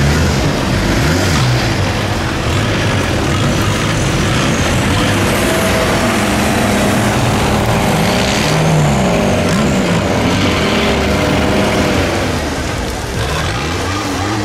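Off-road 4x4 vehicle engine revving hard, its pitch rising and falling again and again, over a dense steady hiss.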